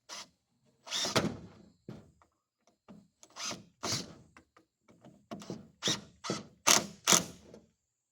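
An irregular series of short knocks and thunks, about a dozen of them, growing closer together and loudest near the end.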